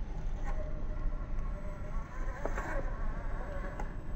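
Brushless motor and drivetrain of a Furitek Fury Wagon 1/18-scale RC rock crawler whining steadily as it drives, the pitch wavering a little with the throttle, with a few short clicks.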